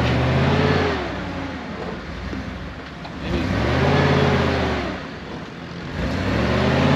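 A lifted Jeep Grand Cherokee's engine revs under load as it crawls up a steep rock slope, in three surges that rise in pitch and ease off, the last one still building at the end.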